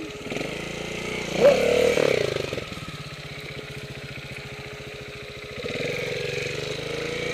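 Trials motorcycle engine idling with a steady, rapid putter, getting louder about six seconds in. A brief louder sound comes about a second and a half in.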